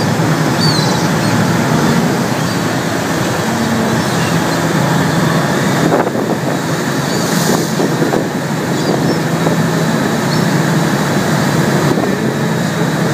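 Steady drone of a tour boat's engine under way, with water rushing in the churning wake and wind buffeting the microphone.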